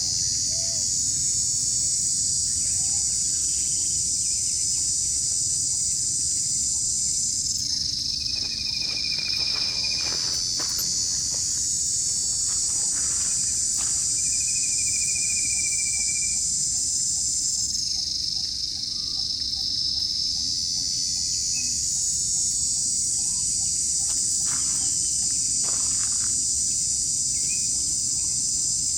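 Loud, high-pitched insect chorus that goes on in long stretches and falls away briefly about every ten seconds, with a few faint rustles and short high calls over it.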